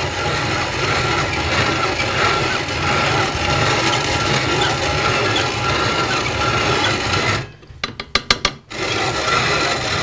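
Hand-cranked grain mill grinding dried corn kernels into cornmeal, a steady gritty rasp of the burrs. This is the second pass, with the meal coming out fine. The grinding breaks off for about a second near the end with a few clicks, then starts again.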